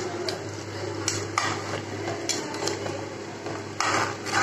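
A metal spoon stirring chicken in a cooking pan, clinking and scraping against the pan a few times, with a longer, louder scrape near the end. A steady low hum runs underneath.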